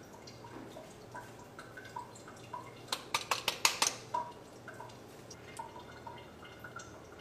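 Cooked dal bubbling in a stainless-steel wok, with scattered small pops and plops, and a quick run of sharp clicks and taps about three seconds in.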